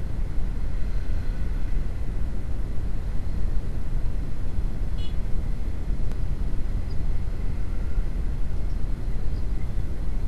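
Honda CB150R motorcycle ridden slowly through traffic, heard from an action camera on the bike or rider: a steady low rumble of engine, road and wind buffeting on the microphone. A brief high chirp sounds about halfway through.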